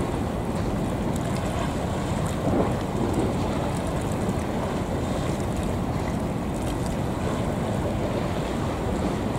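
Steady wind noise on the microphone with water washing against the quay wall, loudest in the low range.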